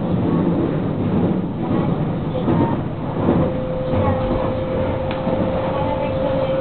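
Running sound of a JR West 223 series 6000 electric train with Hitachi traction equipment, heard from the cab at speed: a steady rumble of wheels on rail. About halfway through, a steady electric whine sets in and holds.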